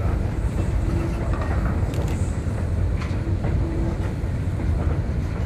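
Slow coal train of hopper wagons hauled by a Hudswell Clarke 0-6-0ST saddle tank steam locomotive: a steady low rumble of rolling wheels, with occasional clanks from the wagons and two brief faint squeals.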